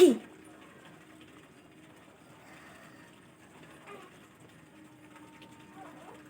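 A person's single sharp, loud burst of breath at the very start, of the kind made in a nose-blowing or sneezing challenge, ending in a short falling voiced tail. Then faint room sound with a low steady hum.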